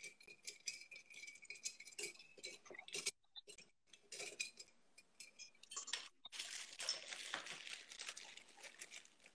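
Ice cubes clinking and rattling as a cocktail is stirred with a metal bar spoon, a quick run of small clinks to blend and chill the drink. The clinking is thickest at the start and again in the last few seconds.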